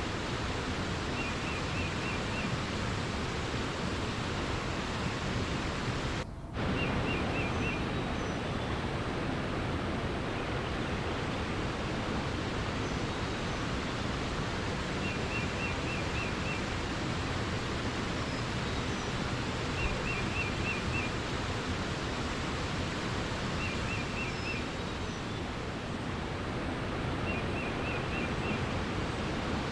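Steady rush of flowing water, with a small bird repeating a short, quick trill of about five high notes every few seconds. The water sound drops out for a moment about six seconds in.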